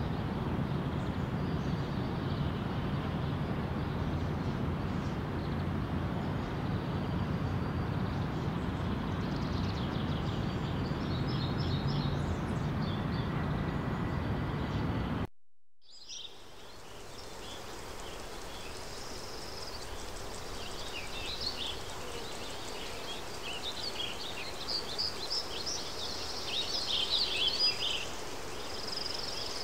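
Steady low rumble of road traffic crossing the bridge, with outdoor noise. After a sudden cut about halfway, quieter ambience with birds chirping, busiest near the end.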